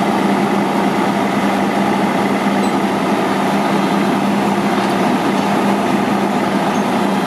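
Diesel engine of a 2005 Sterling LT9513 crane truck running steadily, with a constant low hum.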